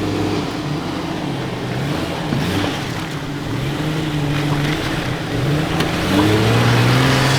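Vehicle engine running under load, its pitch rising and falling again and again with the throttle.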